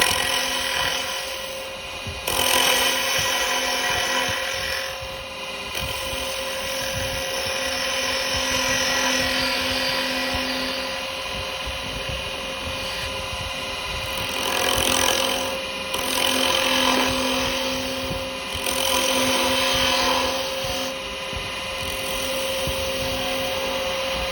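Wood lathe running with a steady hum while a carbide cutter shears spinning yew. The cutting hiss swells and fades over several passes.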